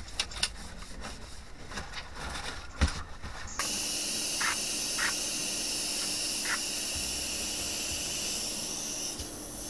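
Cloth rustling and light clicks as a metal part is wiped down, then, about three and a half seconds in, an electrostatic powder-coating gun starts spraying with a steady hiss over a low hum, the hiss thinning near the end.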